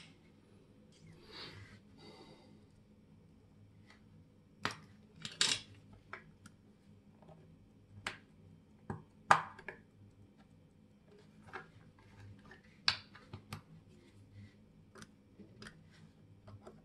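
Watchmaker's small metal tools clicking and tapping against watch parts on the bench: scattered sharp clicks, about five of them louder, with a short rustle about a second in.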